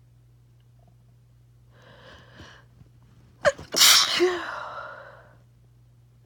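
A person sneezing: a breathy intake of breath, then about three and a half seconds in a single loud sneeze that trails off over about a second and a half.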